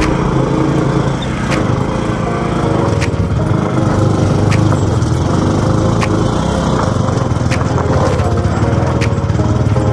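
Motorcycle engine running steadily under load while carrying two riders uphill, with a sharp tick about every second and a half.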